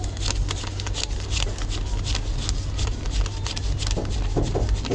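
Paper banknotes being handled and counted: a run of quick, crisp rustles and flicks over the steady low hum of an idling truck engine.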